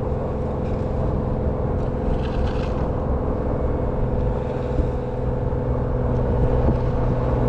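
Jeep Wrangler driving steadily, its engine and drivetrain making a continuous low drone with a steady hum.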